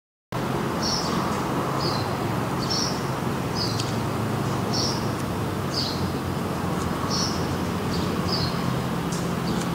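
A small bird chirping over and over, about once a second, alternating a higher and a lower note, over a steady low background hum. The sound cuts in just after the start.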